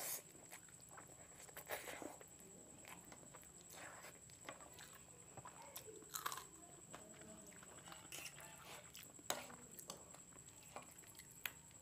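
Close-miked eating sounds: slurping Maggi instant noodles and chewing, with a crunchy bite into a raw green chili about six seconds in. Short wet clicks and smacks of the mouth are scattered throughout.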